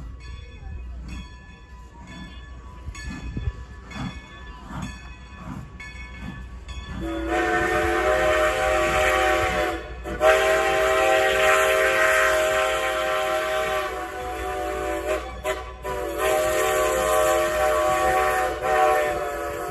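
Steam locomotive working, with exhaust chuffs about twice a second, then its multi-tone steam whistle sounding loudly from about seven seconds in: long, long, short, long, the pattern of a grade-crossing signal.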